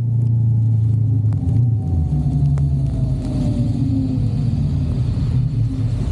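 A vehicle engine running steadily while on the move, its pitch stepping up about two seconds in.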